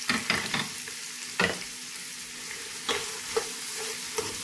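Freshly chopped onions sizzling in hot coconut oil in a nonstick pot. A spatula scrapes and knocks against the pan several times as they are stirred.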